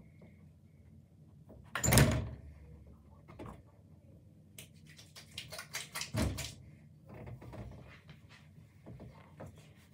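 Handling noises: a loud knock about two seconds in, fitting a plastic bottle being set down on a hard surface, then a run of short clicks and a second knock as wet hands work product through hair.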